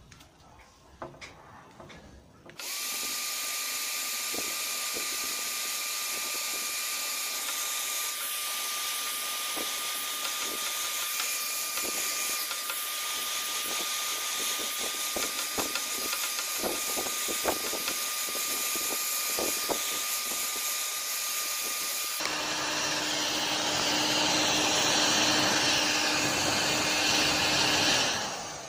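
Parkside heat gun running, its fan blowing steadily with a thin whine, as it melts a plastic zip tie into a hole in a plastic bumper. A few light clicks come before it starts; about 22 s in the sound turns louder with a lower hum, and it cuts off just before the end.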